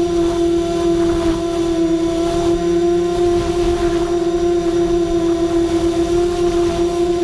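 Quanum Trifecta mini tricopter's motors and propellers running with a steady whine at near-constant throttle, the pitch wavering only slightly, heard from the GoPro mounted on board.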